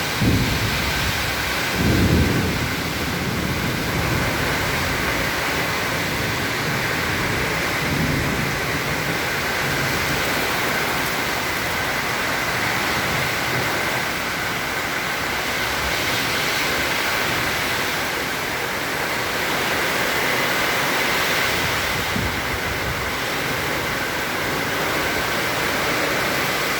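Heavy rain falling in strong wind: a dense, steady hiss, with a few low rumbling gusts in the first eight seconds, the strongest about two seconds in.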